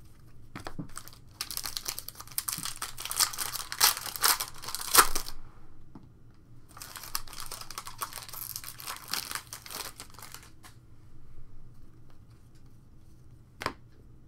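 Foil Panini Prizm card-pack wrappers crinkling and being torn open by hand, in two stretches of a few seconds each, with a single sharp tap near the end.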